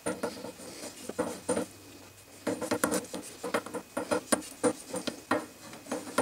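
Tubing cutter being turned round and round half-inch copper pipe, its cutting wheel scoring the copper with a run of irregular scraping clicks as it cuts through.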